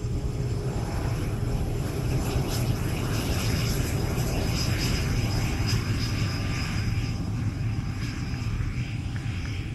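BAE Hawk 100 jet's Adour Mk 871 turbofan running as the jet taxis on the runway: a steady, loud rumble with a faint high whine over it.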